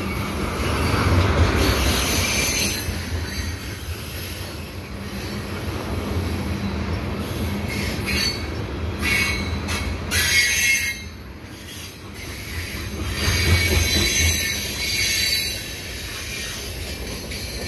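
Freight cars (tank cars, then covered hoppers) rolling past with a low rumble, their steel wheels squealing on and off as they negotiate the curve.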